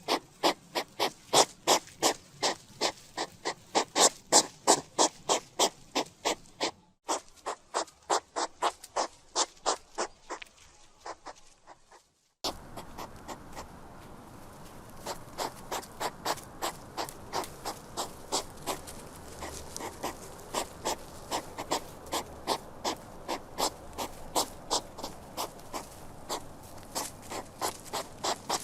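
Hedgehog making rapid, evenly repeated short sharp sounds, about four a second. A brief gap about twelve seconds in is followed by another recording with a steady background hiss under the same kind of rapid pulses.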